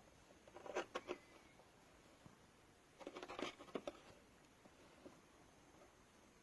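Faint, light clicks and rustling in two short bursts, about half a second in and again about three seconds in.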